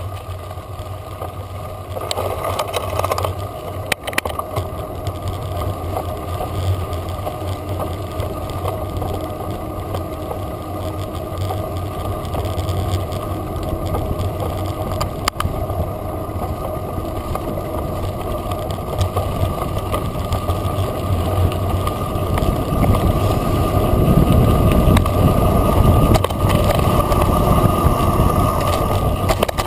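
Mountain bike descending a dirt and gravel track, heard from an action camera mounted on the rider or bike: a steady rush of wind and tyre rumble on gravel, with a few sharp knocks from the bike over bumps. The rumble grows louder and deeper about three-quarters of the way through.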